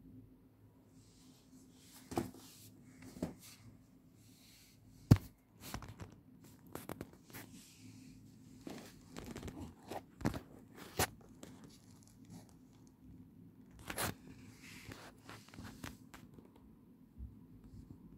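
Hands handling a canvas high-top sneaker close to the microphone, pulling its collar open: scattered rustles, scrapes and knocks, the loudest a sharp knock about five seconds in, over a faint steady hum.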